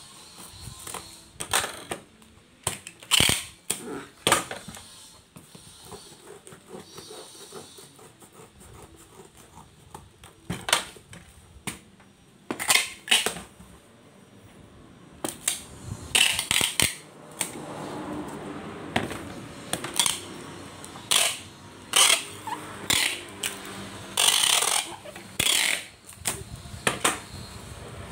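A cardboard box being taped shut: packing tape pulled off a handheld dispenser in repeated short rips, irregularly spaced, with knocks and rubs of cardboard and tools on a wooden table between them.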